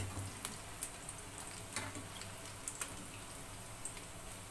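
Small batter-coated fish deep-frying in hot oil in a frying pan: a steady soft sizzle with scattered sharp crackles and pops.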